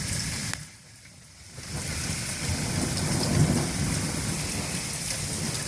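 Steady rain noise with a low rumble underneath, from heavy rain over a flooded yard. A sharp click comes about half a second in, the sound drops away for about a second, then the rain noise returns steadily.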